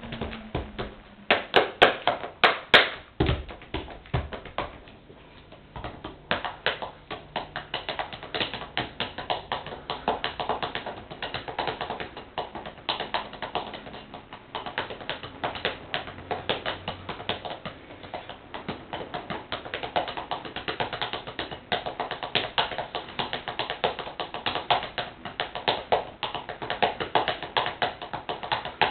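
Drumsticks drumming on a pair of sneakers: a few loud single strikes at first, then a fast, steady stream of sharp taps in a drum-beat pattern.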